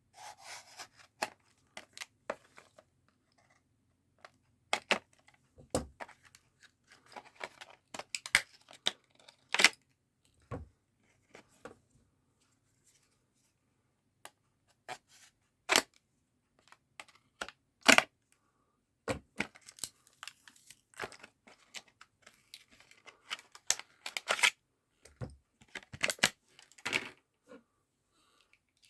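Retail packaging being cut, pried and torn open with a small utility blade: irregular sharp snaps, clicks and short bouts of crackling and tearing, with pauses between them.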